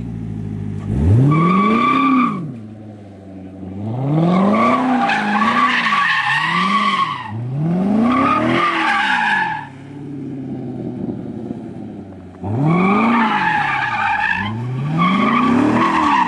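Corvette C7 Stingray's V8 revving up and down over and over as the rear tyres squeal and skid through donuts and drifts. It comes in several loud bursts with short lulls between them.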